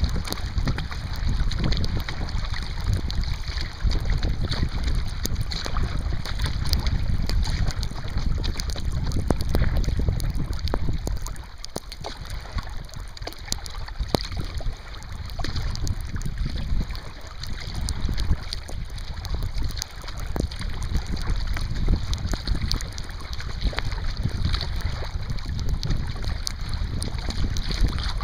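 Wind buffeting the microphone in a low, uneven rumble over water slapping and splashing against a kayak hull moving through choppy water. The wind rumble eases for a few seconds about twelve seconds in, then returns.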